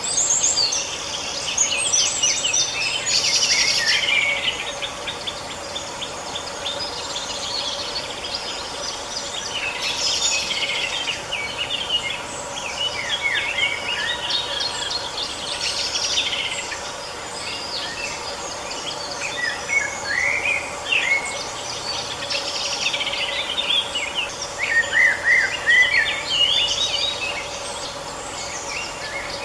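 Songbirds singing outdoors in a run of quick chirps and short trilled phrases that come and go throughout, over a faint steady hum.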